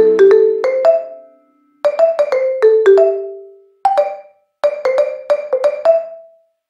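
Background music of short, quickly fading struck notes in brief phrases, with short silences between them.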